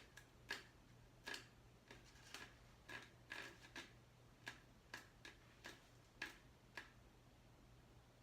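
Faint, irregular clicking from a mini hair crimper as it is clamped shut on sections of hair and opened again, about fifteen clicks spaced unevenly, over a low steady hum.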